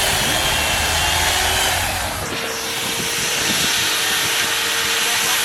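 Power tool cutting into a block of ice, running steadily with a hissing spray of ice shavings.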